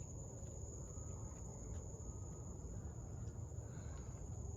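Steady high-pitched insect buzz, like a cricket chorus, over a low outdoor rumble.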